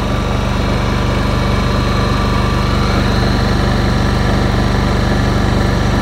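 Honda EU7000iS inverter generator's single-cylinder engine running steadily at a raised speed, carrying about 3,700 VA from a 5-horsepower well pump and a 2-ton central air conditioner together.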